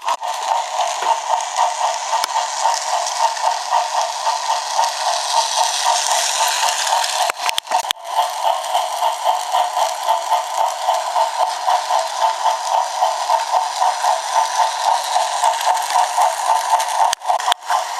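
Battery-powered Trackmaster toy train motor and gearbox whirring as it runs along plastic track, with a regular rattling pulse about three times a second. It cuts out briefly twice, about seven and a half and seventeen seconds in.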